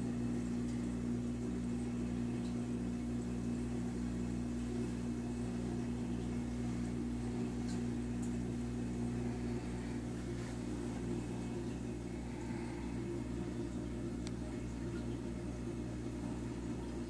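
Steady electric hum of a running reef aquarium's pumps and equipment, with a low steady tone that fades out about ten seconds in.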